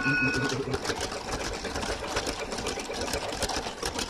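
Toy train running along its plastic track: a small motor's steady run with a dense, rapid clicking clatter.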